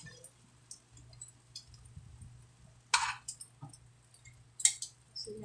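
Metal tongs and a wooden spoon clinking and scraping against an earthenware clay pot as chicken pieces are moved around, with two sharper clinks about three seconds in and shortly before the end, over a faint steady low hum.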